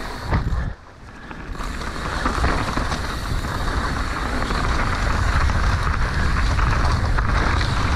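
Mountain bike descending a dirt trail at speed: wind rushing over the microphone mixed with tyres rolling and rattling over the dirt. The sound drops briefly about a second in, then builds steadily as the bike picks up speed.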